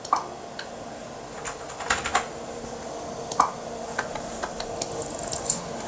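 Apple Bus Mouse button clicking a dozen or so times at irregular intervals, over a steady low hum.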